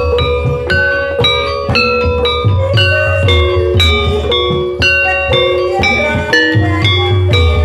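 Live Javanese gamelan for an ebeg dance: bronze-keyed saron metallophones struck in quick ringing melodic runs over regular beats of the kendang hand drums.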